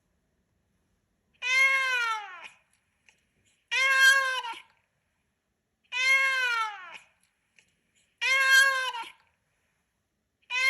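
Google Pixel ringtone made of a looped cat meow: four drawn-out meows about two and a quarter seconds apart, each rising then falling in pitch, with a fifth beginning at the end.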